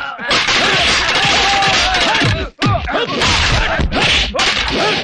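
Film fight sound effects: a dense run of stick and punch whacks and swishes, mixed with men's yells, broken by a brief dropout about halfway through.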